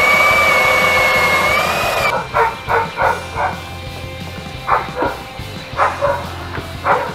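Cordless drill running with a high whine that wavers in pitch, cutting off about two seconds in. A dog then barks in short runs, about nine barks in groups of two to four.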